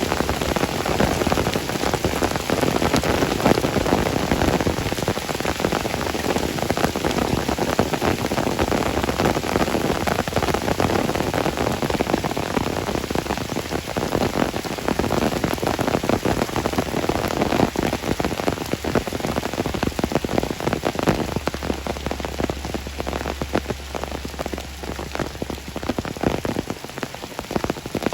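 Steady heavy rain, a dense patter of countless drops hitting surfaces, easing slightly near the end.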